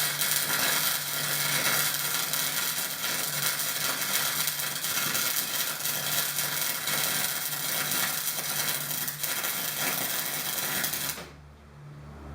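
A power tool's abrasive disc cutting through 75×50 rectangular steel tube: a steady, harsh grinding hiss over a constant motor hum, which stops suddenly about eleven seconds in.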